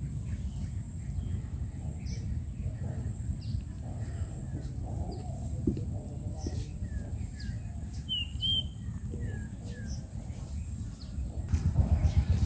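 Birds chirping in short, high calls over a steady low rumble; the calls cluster in the middle of the stretch, and the rumble grows louder near the end.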